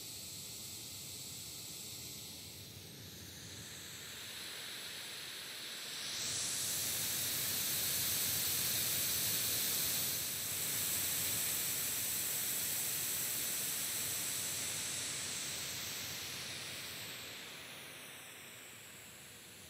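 Steady hiss of test noise played from a small handheld speaker and picked up by a shotgun microphone as the speaker is moved around it to show off-axis rejection. It grows louder about six seconds in, when the speaker comes round toward the front of the mic, and fades again over the last few seconds as it moves off to the side. A hollow, sweeping phasing in the treble shifts as the speaker moves.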